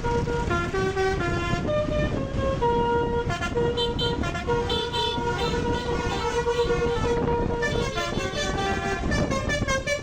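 Indonesian bus 'telolet basuri' multi-tone musical horn playing a melody of quick stepped notes, over a steady low rumble of noise.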